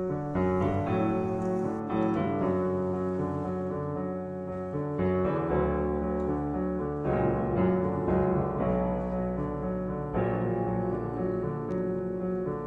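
Background piano music playing slow, held chords that change every two to three seconds.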